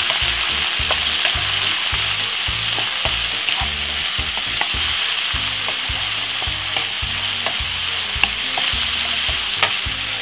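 Chopped onion, spring onion and tomato sizzling in hot oil in a non-stick frying pan while being stirred with a wooden spoon, with a few light knocks of the spoon against the pan.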